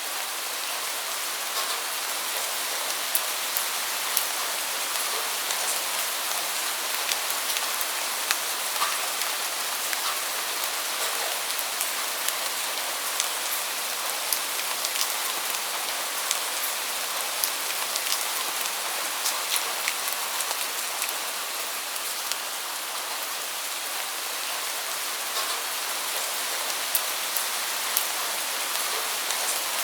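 Steady rain falling: an even hiss with sharp drop taps scattered through it.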